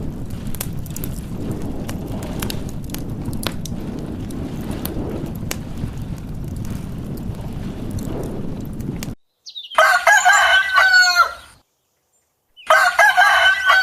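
A rooster crowing twice, each crow about a second and a half long, the second coming near the end. Before the crows there is a steady rushing noise with scattered clicks, which cuts off suddenly.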